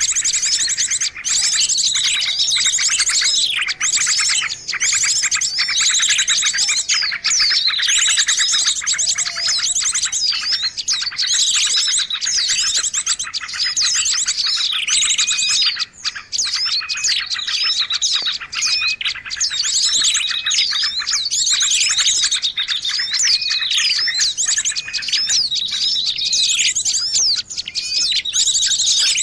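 Songbird calls of the kind played to lure birds: loud, unbroken chirping and rapid high trills, with many notes overlapping.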